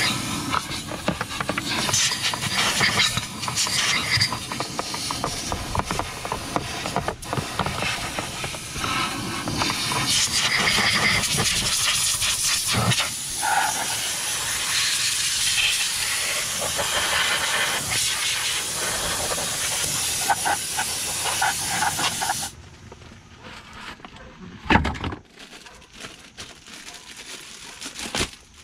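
Mini cyclone vacuum cleaner running, its hose and narrow nozzle sucking leaves and debris out of a car's blower housing, with scattered clicks. It cuts off abruptly about three quarters of the way through, followed by a single thump and quieter handling sounds.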